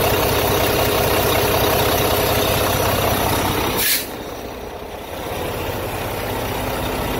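Volvo D13 inline-six diesel truck engine idling steadily, heard up close in the engine bay. A brief hiss comes just before four seconds in, after which the engine sound drops to a quieter, more distant idle.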